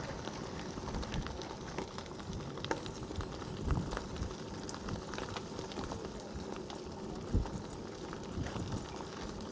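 Bicycle tyres rolling over a fine gravel path: a steady crunching crackle of many small pops, with two dull knocks from bumps, about a third and three quarters of the way through.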